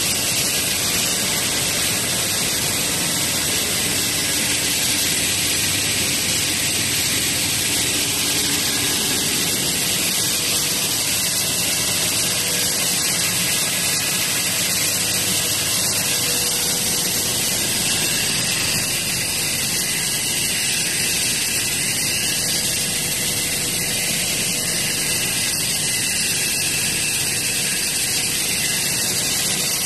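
Black masterbatch pelletizing line running, with its water ring pelletizer and drive motor: a steady hiss of machinery, water and air, with a constant hum.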